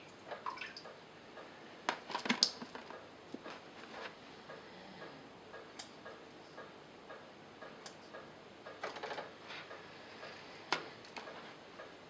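Scattered small clicks and water drips and splashes as hands trim plants inside an aquarium with scissors, snipping off algae-covered leaves.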